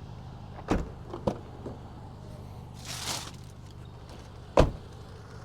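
A few separate thumps, the loudest near the end, and a brief rustle about halfway through, over a low steady hum.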